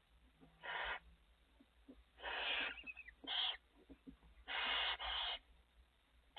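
Barn owl giving a series of harsh, breathy hissing calls, each well under a second long, with short pauses between them; one near the end is doubled.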